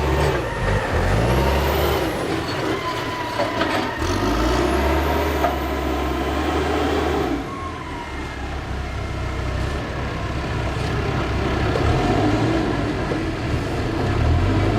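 Heavy truck or construction-machine engine running steadily, with a few sharp metallic knocks in the middle.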